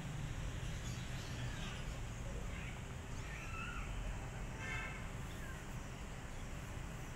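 Steady outdoor background noise with a low rumble, and a few faint high animal calls: short rising-and-falling calls around a second and three seconds in, and a buzzy call a little under five seconds in.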